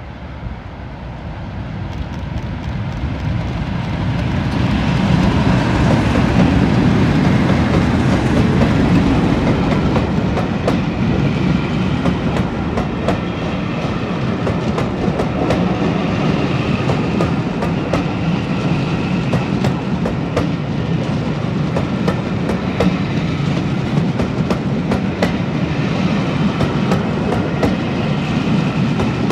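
A pair of class 37 diesel locomotives, each with an English Electric V12 engine, draws near and passes, growing louder over the first five seconds. A long rake of BR Mk1 coaches then rolls by with a steady run of clicks from the wheels going over rail joints.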